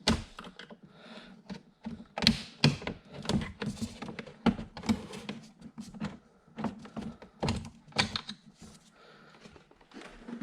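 Irregular sharp clicks and knocks of a car door trim panel being handled while its door-handle cable is unclipped.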